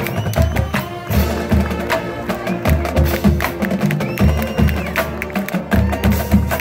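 Marching band playing on the march: brass and sousaphones holding chords over a drumline of snares, tenor drums and bass drums beating out a busy rhythm with sharp rim clicks.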